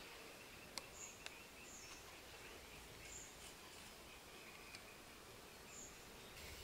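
Faint rural outdoor ambience: a few short, high bird chirps over a steady insect drone, with a couple of small clicks.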